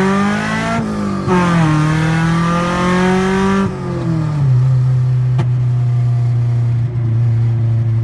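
Car engine under hard acceleration on a quick pull. It climbs in pitch, dips briefly about a second in as it shifts, climbs again, then falls away near four seconds and settles into a steady, lower drone.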